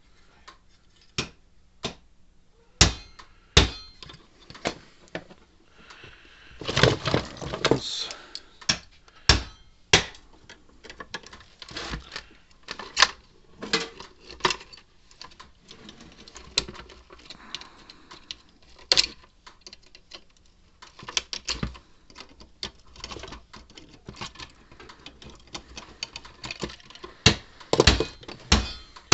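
Irregular clicks, taps and knocks of small parts and tools being handled on a workbench while a fence energizer is taken apart for a circuit board swap, with a longer scraping rustle about seven seconds in and again near the end.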